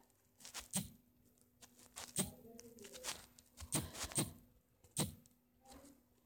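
A few soft, irregular clicks and taps, about six in all, like handling noise or fingers tapping a device, over a faint steady hum.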